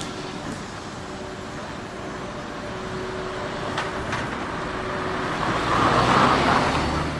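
A road vehicle driving past, its tyre and engine noise growing louder to a peak about six seconds in, then easing off.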